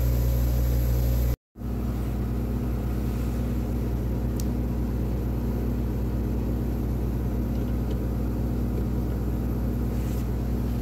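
Steady low mechanical hum of laboratory equipment, a constant drone with a few steady tones. It cuts out for a moment about a second and a half in and then resumes, with a faint click a few seconds later.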